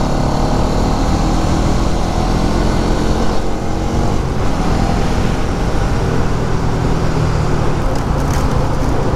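Bajaj Pulsar NS200's single-cylinder engine running steadily at cruising speed, mixed with heavy wind and road noise on the rider's microphone. A few light ticks come near the end.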